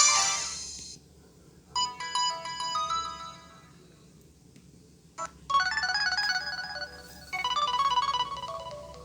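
LG ringtones played on a Samsung SGH-A737 phone's speaker, one after another. A bright melody fades out in the first second and a short tune plays about two seconds in. After a pause, a busy, high-pitched ringtone melody starts a little past halfway.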